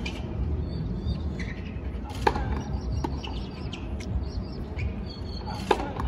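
A few sharp knocks of a tennis ball on a hard court, the two loudest about two and a quarter and five and three quarter seconds in, over a steady background murmur. A few high chirps come in the middle.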